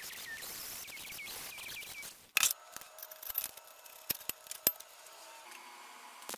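Angle grinder cutting rusty steel square tubing, a steady high grinding hiss, for about two seconds. Then steel tubing and clamps clank and click as the pieces are set up, and a short crackling MIG tack weld strikes right at the end.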